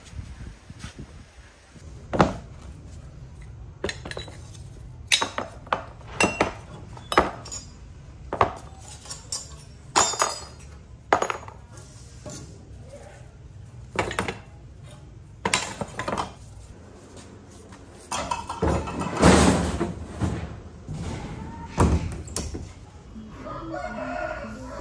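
Rusty chainsaw parts being handled and set down on a workbench and in a tub, a string of irregular metal clinks and knocks over a low steady hum. The clatter grows busier for a couple of seconds about eighteen seconds in.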